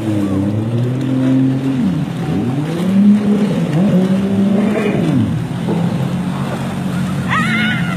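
Several jet ski engines running together close by, revving up and down so their pitches rise, fall and cross as the craft turn and chase each other.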